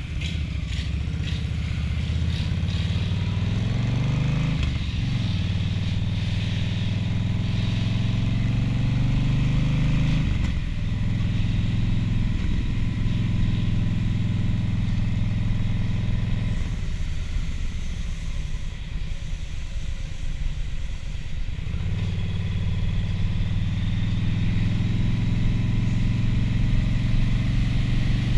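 Motorcycle engine pulling away and accelerating through the gears, its pitch climbing and then dropping at each shift about five and ten seconds in. Past the middle it eases off for a few seconds, then holds a steady cruise, with wind rush over the microphone.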